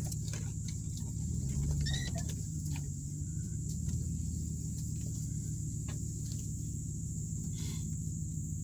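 Dodge Ram pickup running at low speed, heard from inside the cab: a steady low rumble with scattered clicks and knocks as it crawls along a rough woodland track. A few brief high squeaks come about two seconds in.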